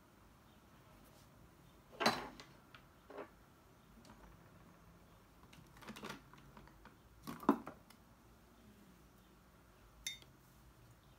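Desk-handling sounds: a few soft knocks and clunks of objects on a desk about two, six and seven and a half seconds in. Near the end comes a short, sharper clink as a mug is picked up from the desk.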